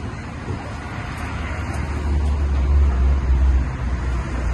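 City street traffic: a vehicle passing close by, its low rumble swelling about halfway through and then easing, over a steady background of road noise.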